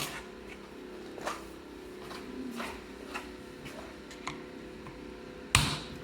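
Scattered light clicks and ticks of a tool working a screw loose after heat has softened its Loctite thread-locker, with a short, louder rasp near the end.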